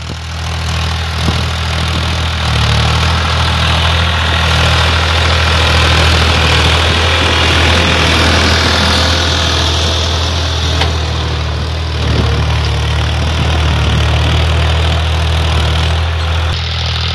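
New Holland 3600 tractor's three-cylinder diesel engine running steadily under load as it pulls a tine cultivator lowered to full depth in low range. The engine holds its speed without bogging down.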